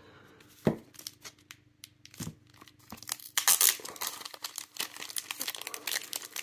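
Clear plastic bag crinkling around a stack of trading cards as it is handled and pulled back from them. There are a couple of soft knocks early, then a dense crackle from about halfway on.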